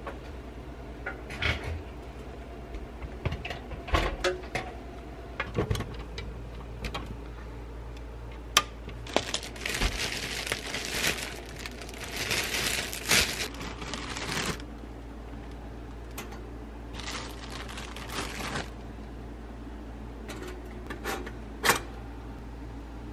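Plastic bread bag rustling and crinkling, mostly in the middle, among scattered clicks and knocks of bread and the toaster being handled on a kitchen bench. Near the end the two-slot toaster's lever is pushed down with one sharp click.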